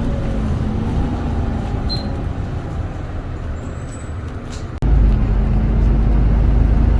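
Inside a moving city bus: steady engine drone and road rumble. A little before five seconds in, the sound drops out for an instant and comes back louder, with a heavier low rumble.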